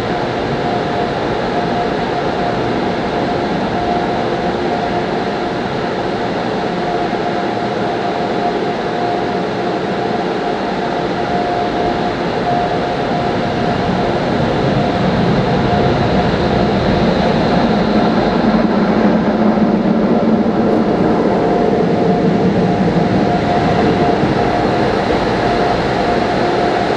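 Automatic car wash air dryer blowers running, a loud steady rush of air heard from inside the car with a steady hum through it. It grows louder about halfway through and eases a little near the end.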